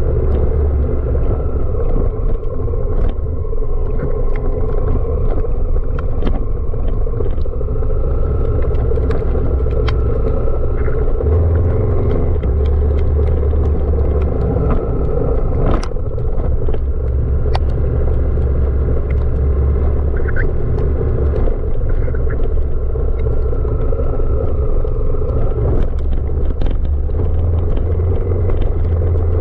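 Honda Africa Twin CRF1000 DCT's parallel-twin engine running steadily on an off-road mountain track. Its low drone changes pitch about a third of the way in and again near the end, with scattered clicks and knocks throughout.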